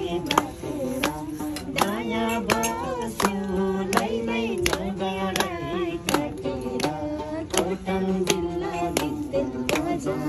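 People singing a song together, with hands clapping in time about once every three quarters of a second.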